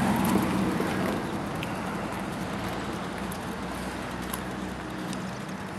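Steady outdoor background noise with a low mechanical hum, broken by a few faint clicks.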